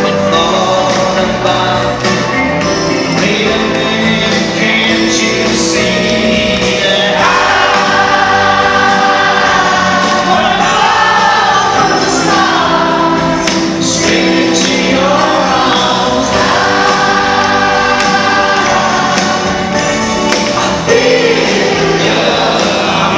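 Live pop band playing a ballad, with the lead singer and a large arena crowd singing along together over guitar, keyboards and drums.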